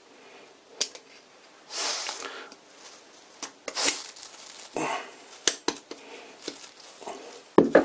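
A ball race being worked by hand onto a steel lathe slide shaft: a few sharp metal clicks and some short scraping and rubbing sounds.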